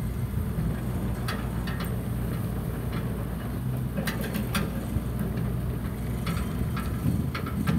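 Hitachi Zaxis 50 mini excavator's diesel engine running steadily at idle, with a few light clicks and rattles.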